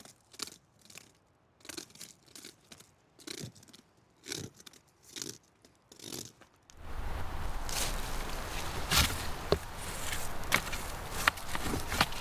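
Repeated rasping scrape strokes, about one every half second to second, made to imitate a deer fraying its antlers. About two-thirds of the way in they give way abruptly to louder continuous rustling with sharp cracks.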